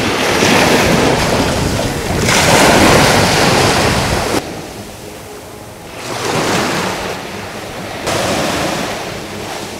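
Small waves breaking and washing up on a sandy beach, the surf swelling and easing, louder in the first half, with sudden shifts in level.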